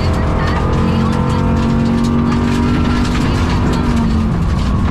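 Rally car engine at speed, heard from inside the cabin. Its note climbs slightly and then drops about four seconds in. The crew says the engine has a bad misfire and is down on power. Sharp clicks of stones hitting the car sound throughout.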